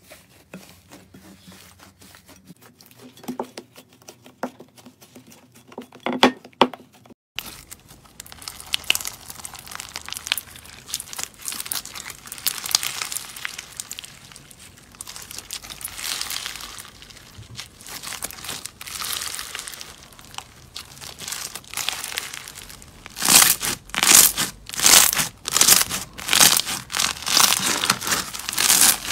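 Slime being squished and stretched by hand, crinkling and crackling. It is faint with scattered clicks at first, gets suddenly louder about seven seconds in, and near the end becomes a run of loud crackling presses, about three every two seconds.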